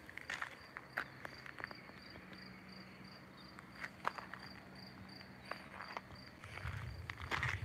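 Footsteps of someone walking, with scattered small clicks, over a cricket chirping in an even high-pitched pulse of about five chirps a second that stops near the end. A faint low hum runs through the middle, and a low rumble comes in near the end.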